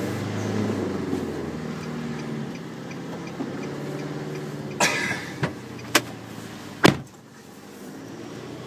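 Renault Trucks D 2M's diesel engine running while the truck is driven, heard from inside the cab. Four sharp knocks come at about five to seven seconds in, and the engine sound is quieter after the last one.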